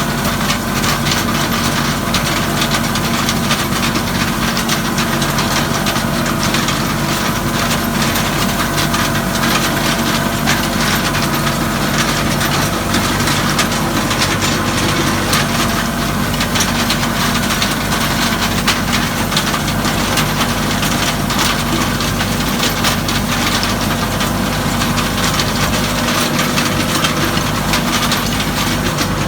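Farm tractor engine running steadily at a constant speed, with a dense crackling rattle of hay-field machinery over it.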